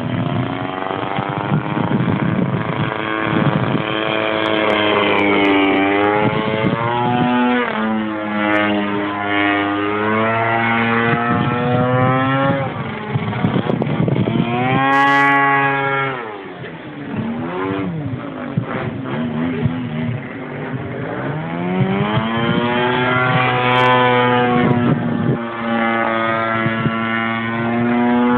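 DLA 64cc twin-cylinder boxer gasoline engine of a giant-scale radio-controlled Yak 54 aerobatic plane in flight, its pitch swinging up and down repeatedly as the throttle and distance change. The engine drops back and quietens briefly a little past halfway, then climbs again.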